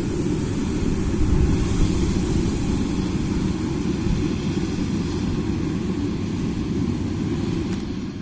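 Rice combine harvester running steadily, a continuous deep machine noise.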